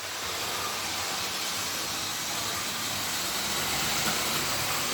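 Model electric locomotive running along the track under overhead catenary: a steady hiss of its small motor and wheels that grows slightly louder.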